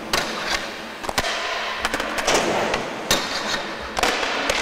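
Skateboard clattering: a run of sharp, irregular cracks and knocks as the board strikes the car's roof rail and the hard floor during a bail, over the rushing rumble of hard wheels rolling.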